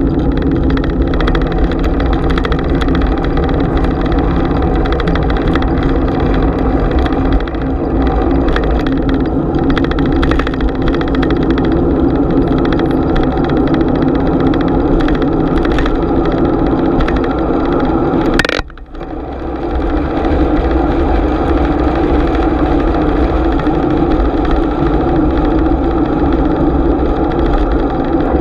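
Bicycle riding noise picked up by a GoPro on the bike: steady wind rush and tyre rumble with small rattles and clicks from the bike. A sharp knock about two-thirds of the way through, after which the noise briefly drops away and comes back.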